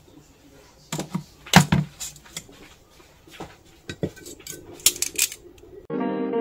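Hard-boiled eggs and a metal utensil knocking and clinking on a ceramic plate, a string of sharp taps as the eggs are set down and their shells cracked. Guitar music with singing comes in near the end.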